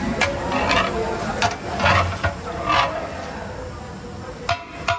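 Long metal ladle knocking against a large steel pot of nihari: a string of irregular clanks, then two short ringing metallic clinks near the end.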